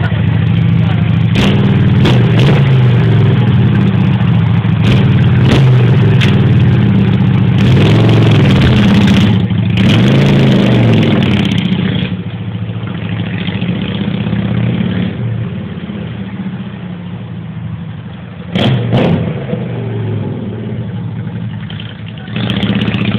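Custom trike built on a 1998 Honda VT600 motorcycle, its engine revved up and down in rising and falling sweeps close by. About halfway through it turns fainter as the trike rides away, with two short louder bursts near the end.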